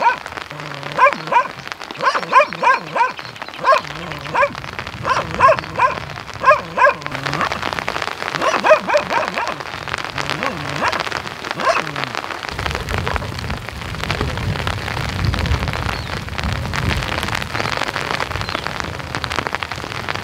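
A dog barking repeatedly, about two barks a second, for the first seven seconds or so, over the steady patter of rain on a surface. The rain gets heavier after the barking stops, and a low rumble joins it about twelve seconds in.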